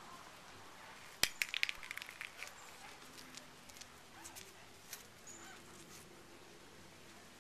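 African grey parrot making a sharp click followed by a quick run of short clicks and chirps, then a few scattered faint ticks.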